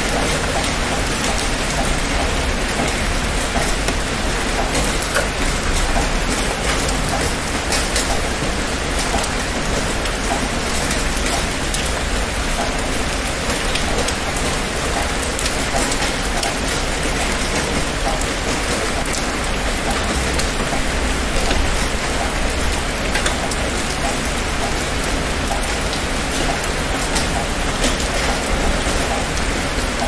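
Heavy rain falling steadily: a dense, even hiss with many individual drops ticking on a hard surface.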